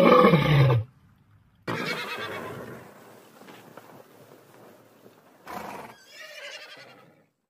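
A lion's roar, falling in pitch, ends about a second in. Then ponies whinny twice: once about two seconds in, fading away, and again about four seconds later.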